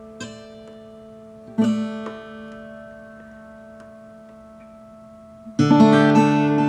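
Ambient guitar music: a steady held drone with single plucked guitar notes ringing over it, then a louder strummed chord about five and a half seconds in that rings on.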